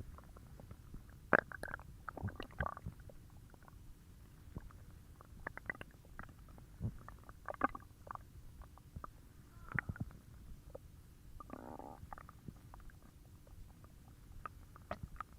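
Stomach growling and gurgling in an irregular string of short squeaks, pops and bubbly gurgles, with one longer, pitched growl about three-quarters of the way through.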